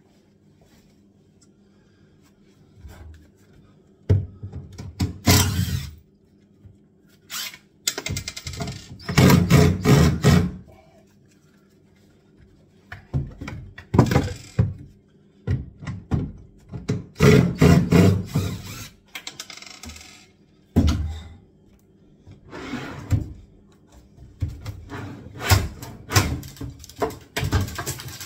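Irregular thuds, knocks and clattering from kitchen units being worked loose and pulled apart by hand during a kitchen strip-out, in bursts with short pauses between and a couple of longer rattling stretches.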